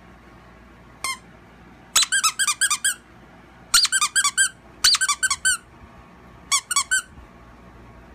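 Squeaker in a plush dog toy squeaking as a puppy chews it: one squeak about a second in, then four quick runs of rapid squeaks, several a second.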